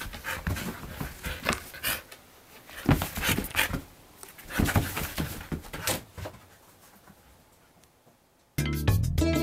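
Siberian husky making excited short vocal sounds and panting in irregular bursts, then falling quiet; background music starts near the end.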